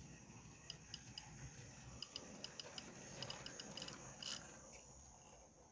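Model railway tank engine and two coaches running along the track: a faint steady running hum with light irregular clicks of the wheels over the rail joints. The clicks come thicker and the sound grows a little louder as the train nears, then eases off.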